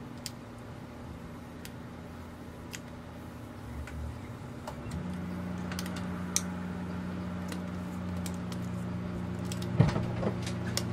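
Scattered small clicks and crackles of old polarizing film being peeled by hand off the glass of a boat gauge's LCD screen, with a short burst of louder crackling near the end.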